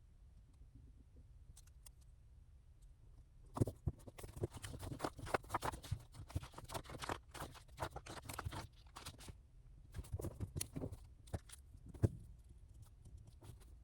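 Rustling and light clicking of small objects being handled: a dense run starting about three and a half seconds in, a shorter run later, and one sharp click near the end.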